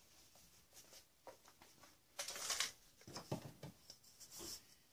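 Black ABS plastic pipe fittings handled on a workbench: a short scraping rub a little over two seconds in, then a few light knocks and clicks of plastic parts.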